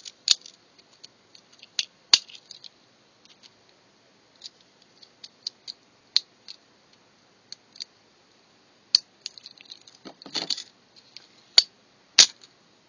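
Small white plastic housing of a gift card's geared DC motor being pried apart with a metal blade: scattered plastic clicks and scratches, with about six sharp snaps spread through, and a short scraping rustle near the end.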